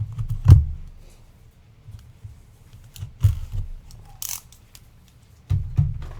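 Handling of a trading-card box and its packs on a table: a few sharp knocks and clicks, the loudest about half a second in and a cluster near the end, with a short scraping rustle in between.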